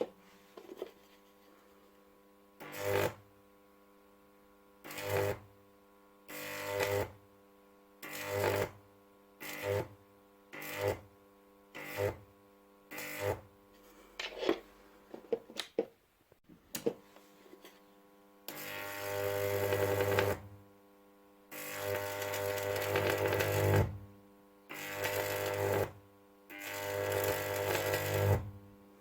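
Microwave oven transformer's 2350 V output drawing high-voltage arcs: repeated buzzing arcs, short ones of about a second in the first half, then longer ones of about two seconds each, with a steady transformer hum between them.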